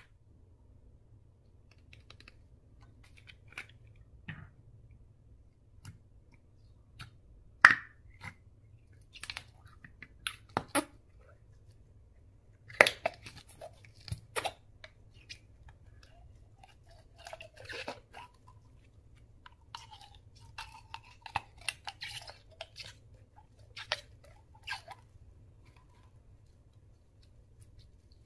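Slime being worked and mixed, giving irregular sticky crackles and pops. The loudest snaps come about eight and thirteen seconds in, with softer squishy crackling later on.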